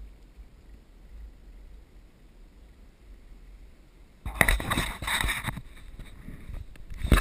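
A cable-ride seat setting off along its overhead steel cable: a faint low rumble, then about four seconds in a sudden loud rattling rush of the moving seat and wind on the microphone, rising and falling.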